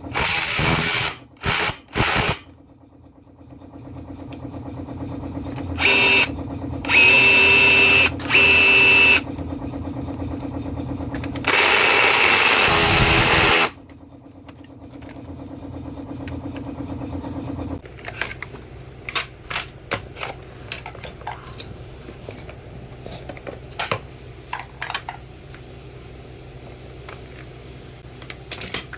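Makita DHR280 rotary hammer run in short trigger bursts, the longest about two seconds, over a steady hum. After that only scattered clicks and knocks of handling.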